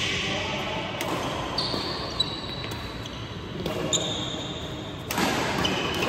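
Badminton rackets striking a shuttlecock in a doubles rally: several sharp hits a second or more apart, the loudest about five seconds in, echoing in a large hall.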